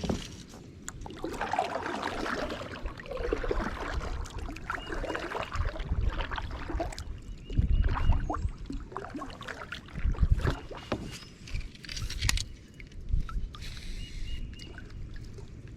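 Water splashing and dripping around a kayak, with a few heavy low thumps about eight and ten seconds in.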